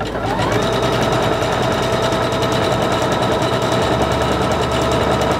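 Singer Confidence 7640 electronic sewing machine sewing a decorative starburst stitch at steady speed. The motor whines up briefly at the start, then the needle rattles rapidly and evenly.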